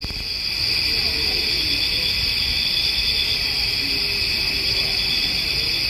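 Night insects calling in a steady high chorus, with a faint, drawn-out wavering wail beneath them that bends in pitch at first and holds steadier later. The uploader wonders whether the wail is a dog howling.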